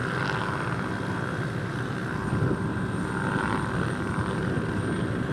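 Helicopter flying, a steady engine and rotor noise.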